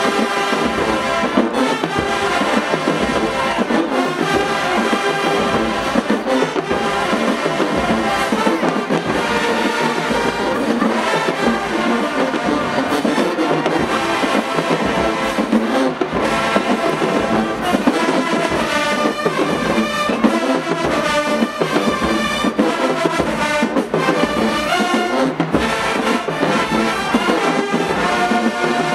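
HBCU marching band playing: full brass section of trumpets and trombones over drumline percussion, loud and continuous.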